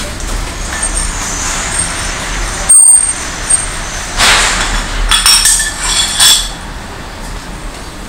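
Metal flushing canister being unscrewed from its gauge head, with handling noise, a short hiss about four seconds in, then several metallic clinks.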